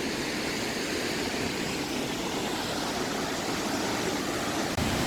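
Waterfall rushing: a steady, even roar of falling water from Roaring River Falls.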